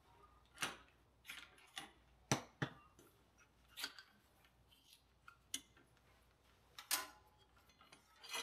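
Light, scattered clicks and knocks of hands working on an old steel bicycle's handlebar and controls, about nine in all at irregular intervals.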